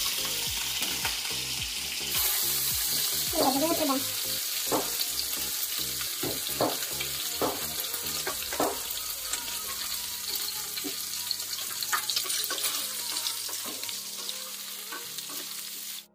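Chicken pieces sizzling as they fry in oil in a non-stick pan, with a spatula stirring and knocking against the pan several times.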